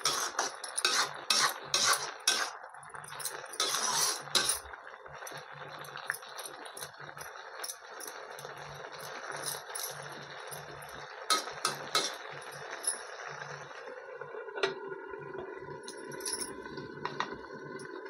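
A slotted steel spoon scraping and clinking against a steel kadhai as wet leafy greens are stirred, over a steady sizzle of the greens cooking in their released water. Stirring comes in clusters of quick scrapes and clinks, then a steel lid clinks onto the pan near the end.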